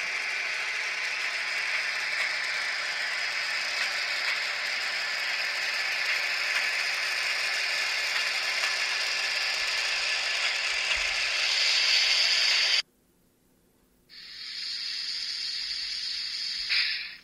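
Rail-joint clicking sound effect (function F10) from the ESU sound decoder of a Jägerndorfer H0 model ÖBB class 2068 diesel locomotive, running steadily for about thirteen seconds and then cutting off suddenly. After a pause of about a second comes the decoder's air-release hiss (function F11), which lasts about three seconds and swells briefly just before the end.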